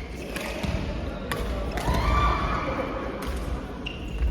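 Sharp, irregular knocks of ball play in a large echoing hall, over a steady low rumble, with a short rising squeak about halfway through.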